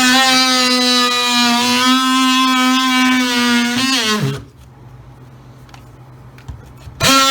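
Cordless oscillating multi-tool running with a steady whine, winding down with a falling pitch about four seconds in, then starting up again near the end.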